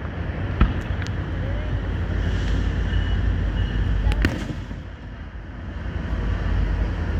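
Aerial fireworks going off: sharp bangs about half a second in, again around a second, and a louder one about four seconds in, over a steady low rumble.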